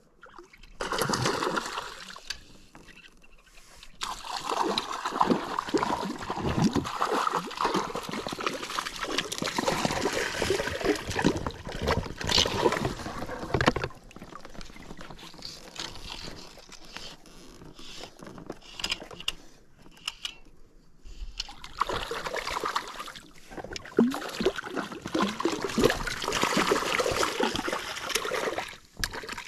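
Water splashing and sloshing in irregular spells, with a hooked fish thrashing at the surface beside the boat near the end.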